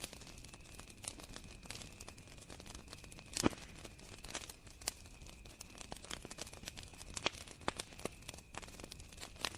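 Campfire crackling, with irregular sharp pops and snaps, the loudest about three and a half seconds in, over a steady high chirring of crickets.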